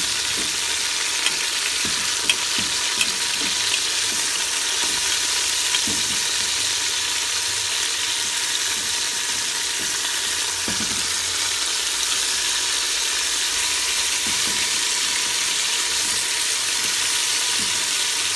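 Seasoned oxtail pieces sizzling steadily in hot oil in an open pressure cooker as they brown. There are a few short, sharp pops in the first six seconds or so.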